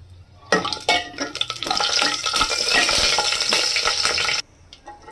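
Dried red chillies, cumin and coriander seeds sizzling in hot oil while a steel ladle stirs and scrapes around an aluminium pot. It starts about half a second in and cuts off abruptly near the end.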